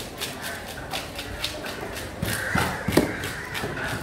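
Heavy fish knife chopping through tuna into a wooden block: two sharp chops about half a second apart, around two and a half to three seconds in, with fainter knocks and clicks in between.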